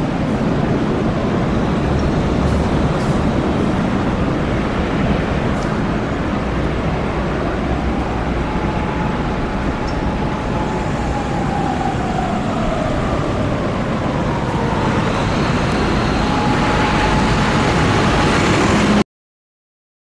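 Steady street traffic noise, vehicles driving through an intersection, with a faint whine that rises, holds and falls away near the middle. It cuts off suddenly about a second before the end.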